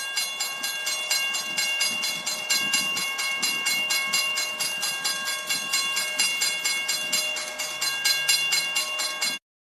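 Diesel-hauled passenger train running by, with a fast, even rhythmic clatter and a steady whine over it. It cuts off abruptly near the end.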